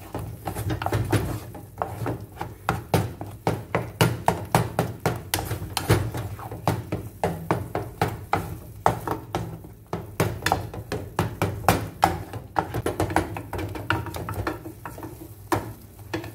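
Wooden spatula stirring and mashing a thick eggplant-and-tomato mixture in a frying pan: quick, irregular clicks and taps of wood against the pan, several a second, over a steady low hum. The tapping thins out near the end.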